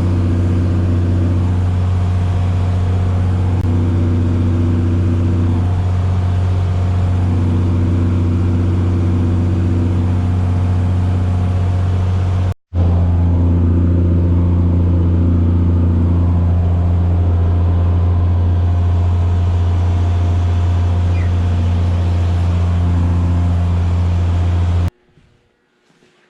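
Tractor engine running at a steady speed under load, a constant low drone with a few overtones. It breaks off for an instant about halfway through, then runs on and stops abruptly near the end.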